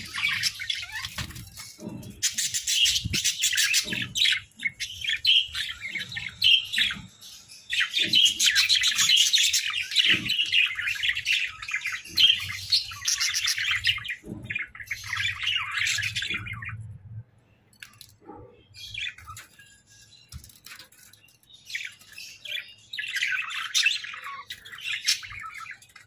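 Hagoromo budgerigars chattering and warbling in dense, busy runs of chirps. The calls thin out a little past the middle and pick up again near the end.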